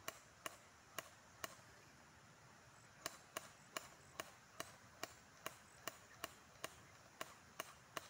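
Faint, sharp clicks repeating fairly evenly about two to three times a second, with a short pause about a second and a half in, over quiet background.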